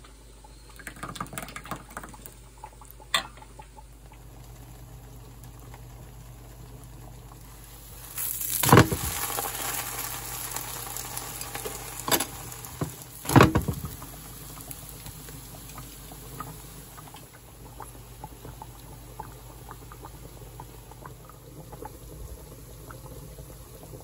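Korean pancake batter frying in a hot pan: a steady sizzle that swells loud about eight seconds in, with two sharp knocks a little later. Near the start, a ladle stirring batter in a bowl gives a few light clinks.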